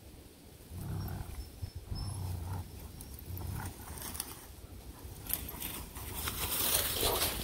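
A Tamaskan and a German shepherd play-fighting, with low growling in the first half. Near the end comes a loud crackling of dry leaves as the dogs run through them.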